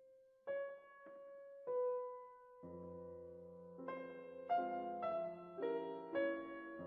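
Background music on piano or electric piano: a few single sustained notes, then slow chords over a low bass note from about two and a half seconds in.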